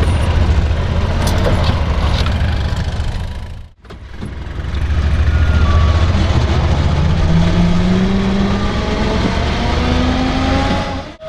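Motor vehicle engine running with a heavy low rumble, cutting out briefly about four seconds in; after that its tone rises slowly, as when the vehicle picks up speed.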